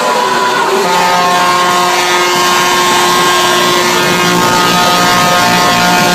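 Loud electronic dance music from a DJ set over a PA: long held synth chords, several notes sustained together over a noisy, distorted wash.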